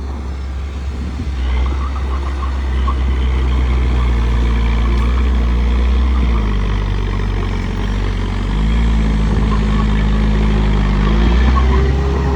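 Bulldozer's diesel engine running steadily while pushing dirt, its engine note shifting pitch a few times.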